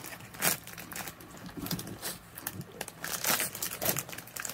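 Foil-lined potato chip bag crinkling as it is handled, in irregular crackles, loudest about half a second in and again near the end.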